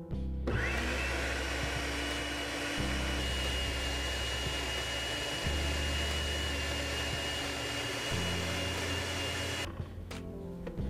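Countertop blender motor spinning up with a quick rising whine, then running steadily as it purées hot broccoli and potato soup until smooth, and switching off near the end.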